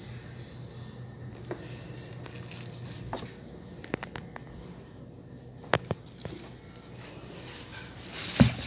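Scattered small clicks and knocks of objects being handled, with a louder rustling burst near the end.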